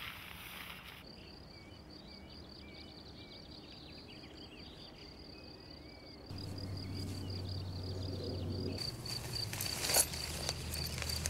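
Outdoor ambience of an insect chirping in a fast, steady high-pitched pulse train, with a few faint bird chirps. A low hum comes in about six seconds in, and a single sharp click sounds near the end.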